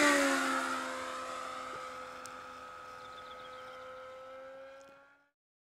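Radio-controlled P-51 Mustang model plane making a fast flyby: its motor's high steady tone is loudest as it passes and drops in pitch, then fades away, cutting off suddenly about five seconds in.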